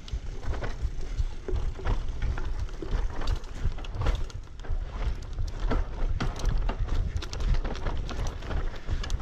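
Bicycle riding over a bumpy dirt trail strewn with pine needles and twigs: the tyres crunching and the bike rattling in quick, irregular clicks over a steady low rumble.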